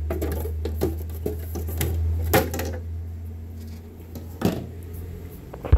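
Several sharp plastic clicks and knocks as the top cover of an Air Techniques AT2000XR dental film processor is pried loose and handled, over a steady low hum that fades out past the middle.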